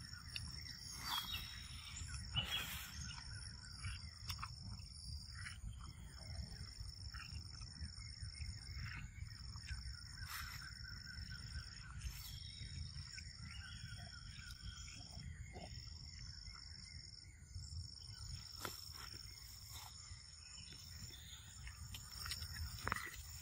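Outdoor ambience of insects trilling steadily at a high pitch, breaking off and starting again every few seconds, over a low rumble, with a few scattered soft clicks.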